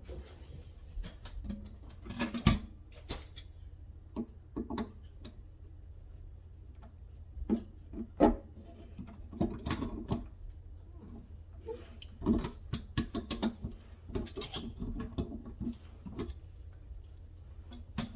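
Irregular clicks, taps and light scrapes of a Delta kitchen faucet's small inner parts being handled and worked loose during disassembly, over a steady low hum.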